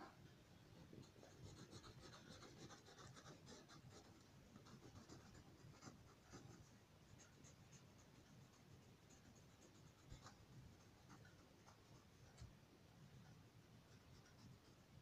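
Faint scratching of a yellow crayon rubbed across paper in short, rapid colouring strokes, with an occasional sharper tick.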